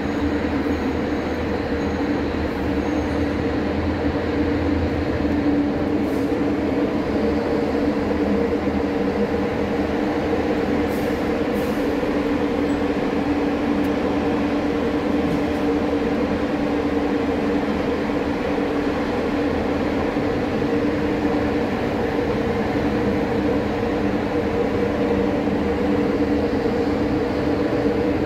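Truck's diesel engine running, heard from inside the cab as a steady low hum with a constant drone, while the truck creeps slowly forward.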